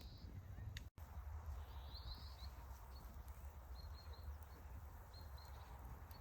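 Quiet outdoor ambience: a steady low rumble, with faint short high chirps of a small bird repeating from about halfway through.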